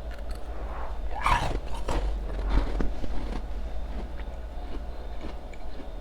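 Close-miked biting and chewing of ice: a cluster of crunches about a second in, then sparser, quieter crunching.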